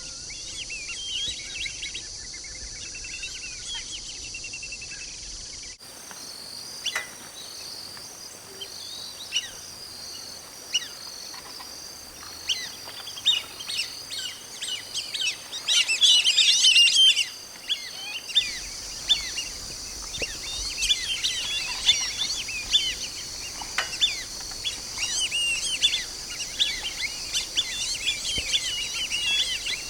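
Black-bellied whistling ducks giving many short whistled calls, with a loud, dense flurry of calling about halfway through. A steady high hiss runs underneath.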